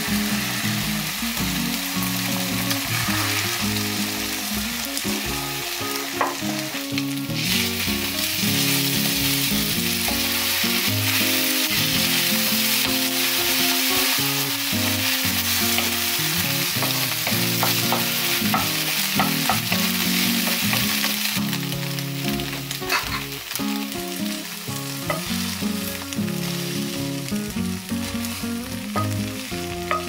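Beaten egg frying in a pan with diced ham, tofu and vegetables, stirred with a wooden spatula. It makes a steady sizzle that is loudest through the middle stretch and eases later on, with a few light taps and scrapes of the spatula.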